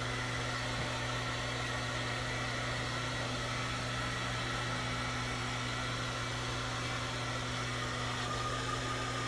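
Blow dryer running steadily with an even whooshing hiss and a low motor hum.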